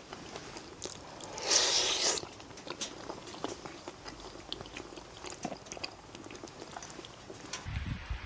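A person eating close to the microphone: chewing and biting with small clicks, and a brief loud rushing noise about one and a half seconds in.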